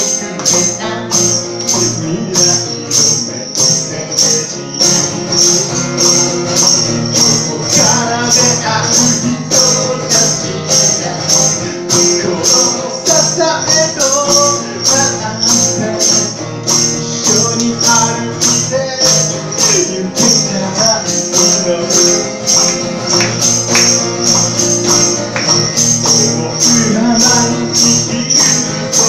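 Live acoustic song: a steadily strummed acoustic guitar under a crisp tambourine-like beat that repeats evenly. A sung melody runs over it from about eight seconds in to about twenty.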